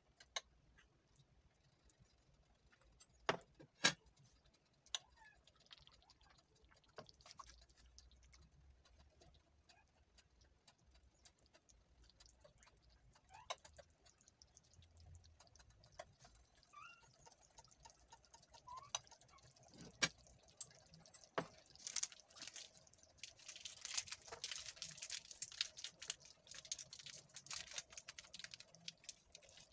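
A few sharp knocks of a spoon on a metal pot early on, then from about two-thirds of the way in a pot of Ethiopian chicken stew bubbling with a busy crackle and pop as it simmers.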